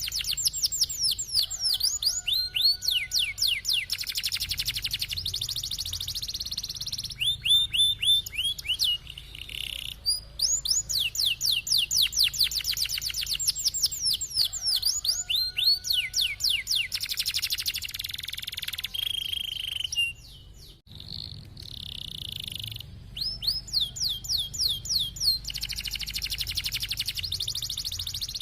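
Domestic canary singing a long, continuous song: quick runs of repeated falling notes alternating with buzzy rolled trills, with one short pause about two-thirds of the way through.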